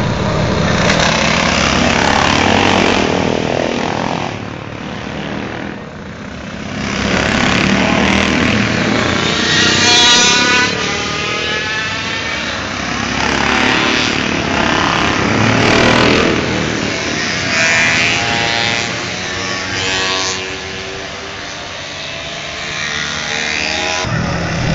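Classic racing motorcycles passing one after another at speed, engines revving up and down through the corner. The sound swells as each bike goes by, dips for a couple of seconds about five seconds in, then builds again as the group comes through.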